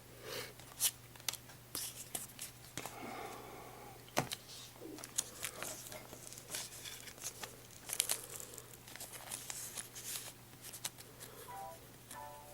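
Foil wrapper of a Pokémon booster pack crinkling and tearing in irregular sharp crackles as the pack is opened and the cards are handled.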